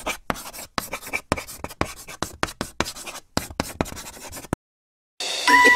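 Chalk-writing sound effect: a quick, irregular run of taps and scratches that stops about four and a half seconds in. Music starts near the end.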